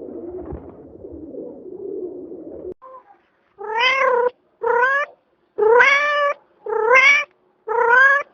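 Domestic cat meowing five times in a row, each meow rising in pitch. It follows a low continuous sound that cuts off abruptly about two and a half seconds in.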